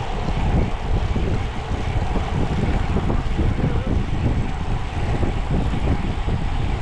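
Wind buffeting the microphone of a camera riding on a moving bicycle: a steady low rumbling rush with an uneven, fluttering level.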